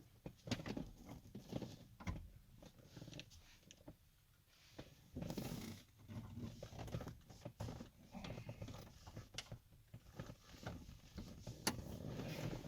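Faint handling noise: scattered irregular clicks, taps and rustling as a circuit tester's ground lead is clipped on at the door hinge and moved about.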